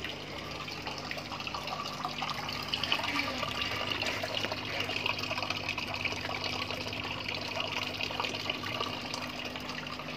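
Aquarium sump filter circulating water: a steady trickle and splash of falling water, a little busier from about two and a half seconds in, with a steady low hum beneath it.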